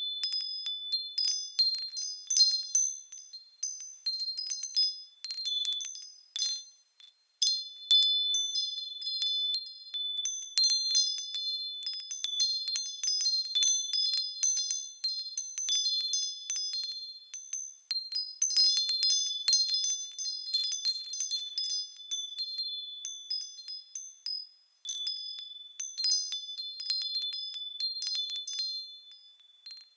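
Wind chimes ringing in irregular clusters of high-pitched strikes, dying away briefly about seven seconds in and again near twenty-five seconds.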